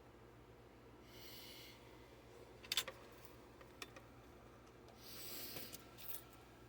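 Quiet handling of wires and small tools at a workbench: a few sharp clicks, the loudest a quick double click nearly three seconds in, with two short soft hisses about a second in and near the end.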